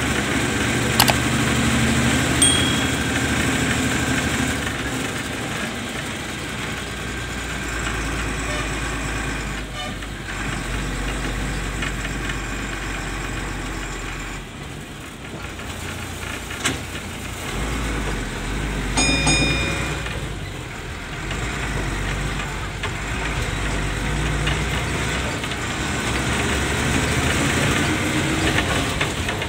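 MSRTC bus's diesel engine running while the bus drives, heard from inside the cabin, with road noise and rattles of the body. A short high beep about 19 seconds in.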